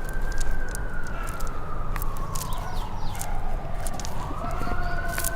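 Emergency vehicle siren wailing: one slow tone that falls in pitch for about four seconds, then rises again near the end. Scattered faint clicks sound over it.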